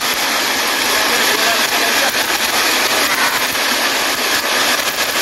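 Steady rushing of a shallow, fast-flowing river, with water splashing as a cast net is dragged through it.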